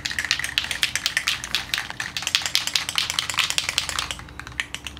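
Aerosol can of clear coat being shaken hard by hand, its mixing ball rattling inside in a rapid, steady clatter that eases off near the end. The shaking mixes the clear coat before spraying.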